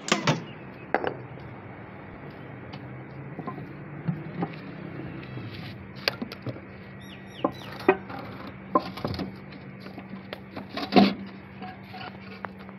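Scattered clicks, scrapes and knocks of metal as the lid of a steel drum is cut and prised open with a knife, with one louder knock near the end; a steady low hum runs underneath.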